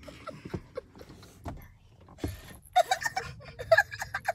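A girl's voice in short, high-pitched bursts over the last second and a half, after a couple of seconds of faint clicks and rustling.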